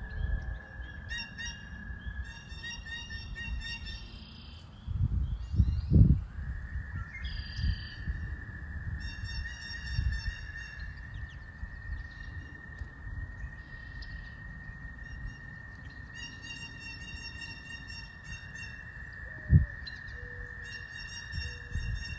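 Wild birds singing and calling: repeated high, chirping phrases that come and go every few seconds over a steady high-pitched tone. Low rumbling runs underneath, with two louder low thumps, one about six seconds in and one near the end.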